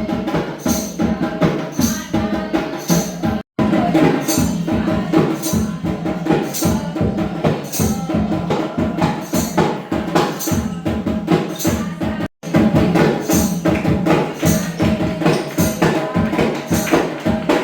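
Folk-style music with a steady percussion beat and tambourine-like jingles about twice a second over a melody, playing for a lamp dance. The sound drops out for an instant twice, about three and a half seconds in and again near twelve seconds.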